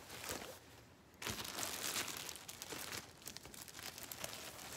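Packaging crinkling and rustling as clothing is handled, a dense run of small crackles that picks up about a second in.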